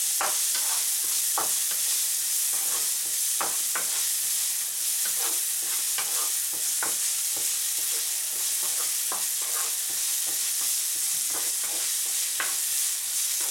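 Diced onion and red bell pepper sizzling in oil in a frying pan, with irregular scrapes of a wooden spatula stirring them about once a second.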